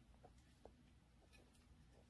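Near silence: room tone with a few faint, light clicks of parts being handled inside a vending machine canister.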